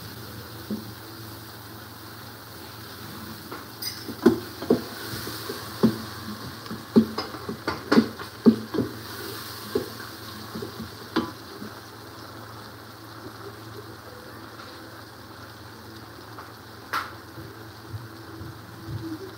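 Onions and tomatoes frying in oil in a metal pressure-cooker pot, a steady sizzle. A wooden spoon stirs them, knocking against the pot in a quick run of clacks during the first half and once more near the end.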